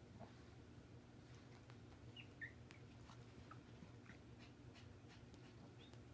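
Faint, short high squeaks from 12-day-old Pomeranian puppies, a handful scattered over several seconds, over a low steady hum.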